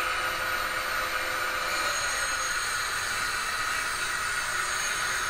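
HO-scale model trains running on a layout: a steady hiss and whirr with a few held whining tones.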